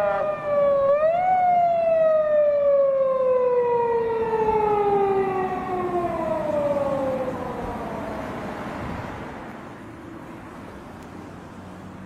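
Japanese police car siren: a quick rise about a second in, then one long, slowly falling wail that fades away over the following seconds.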